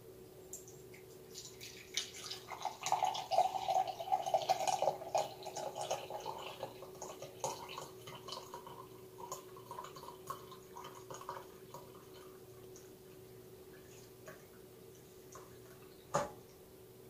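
Hot coffee pouring from a coffee urn's spigot into a ceramic mug, thinning into drips after a few seconds. A sharp click comes about sixteen seconds in, with a faint steady hum underneath.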